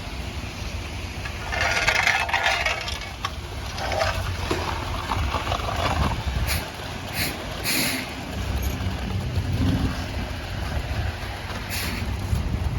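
Concrete mixer truck running while concrete is poured, a steady low engine rumble. A louder rushing hiss comes about two seconds in, and a few short hisses follow in the middle and near the end.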